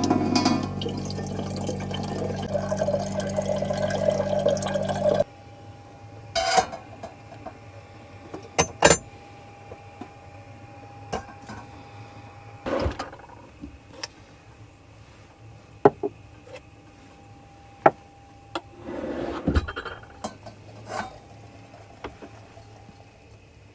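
Water running with a small electric pump humming under it for about five seconds, then cutting off suddenly, followed by scattered clinks and knocks of dishes and utensils.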